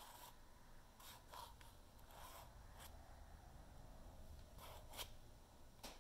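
Faint scrapes of two thin molded carbon-fibre and epoxy tubes rubbing against each other at their conical joint as they are worked together by hand, a handful of short scrapes spread over a few seconds.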